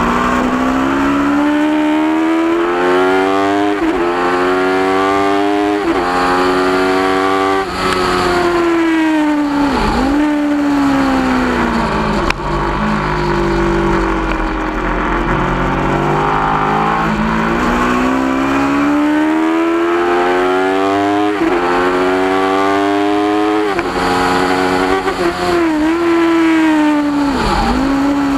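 Onboard sound of a 2010 Aprilia RSV4's V4 engine at racing speed: the revs climb and drop sharply at each quick upshift, then fall away as the bike slows for corners before climbing again. Wind rush runs underneath.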